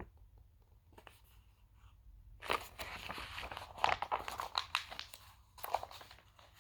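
Paper rustling and crackling as a large picture book is handled and its page turned, starting about two and a half seconds in and lasting about three seconds, with a brief rustle again near the end.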